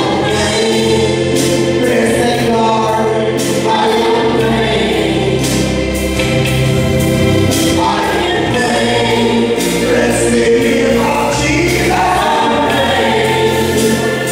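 Gospel song performed with a man singing lead into a microphone and backing singers joining in, over a steady bass line and drums.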